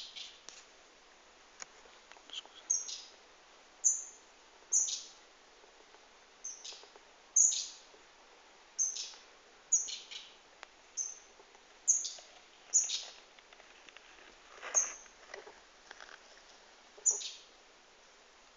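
Short, high chirps from a small animal, each falling quickly in pitch, repeated irregularly about once a second.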